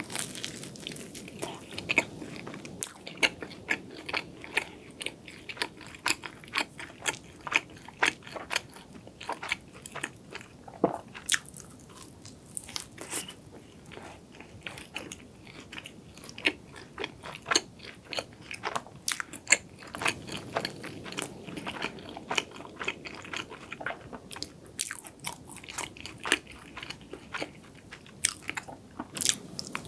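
Close-miked eating of a flaky cronut filled with milk cream: bites and chewing with many small, sharp crackles and crunches as the crisp croissant layers break up in the mouth.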